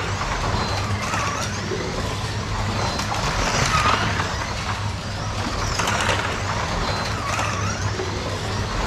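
Two 1/24 scale Carrera slot cars running laps on a Policar track. Their small electric motors whine, rising and falling in pitch every couple of seconds as the cars speed up on the straights and slow for the turns, over a steady hum.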